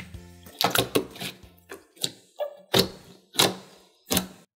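Thick jelly slime being squished and poked by fingers, giving a string of sharp, clicky pops, about six over four seconds, which stop just before the end.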